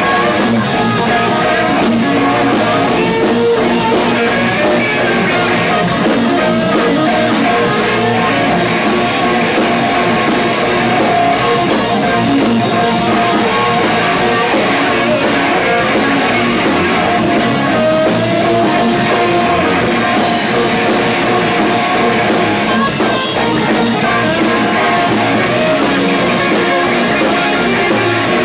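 Live rock band playing: electric guitars, bass guitar and drum kit, loud and steady throughout.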